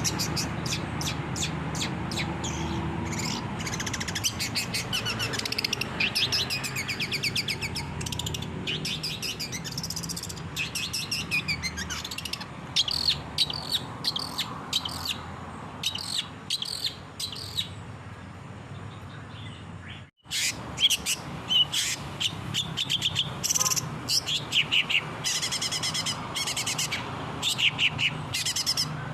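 Long-tailed shrike (cendet) singing fast, chattering phrases of rapidly repeated high notes over a steady low hum. The song cuts out abruptly for a moment about twenty seconds in, then resumes.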